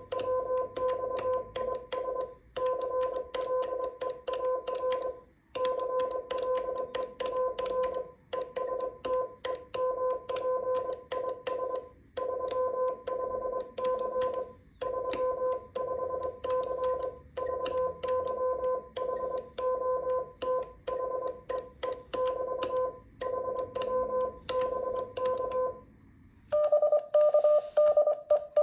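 Morse code hand-sent on a small paddle key: a steady tone of about 500 Hz keyed on and off in dots and dashes, with light clicks from the key. After a short pause near the end a slightly higher, louder Morse tone starts up.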